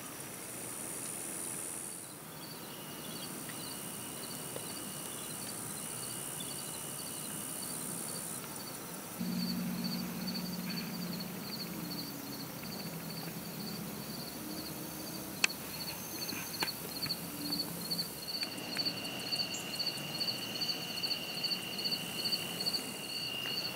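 Evening insect chorus: crickets chirping in a steady, high, pulsing rhythm over a continuous high buzz of other insects. A low drone comes in about nine seconds in and fades out some nine seconds later, and a couple of sharp clicks are heard a little past the middle.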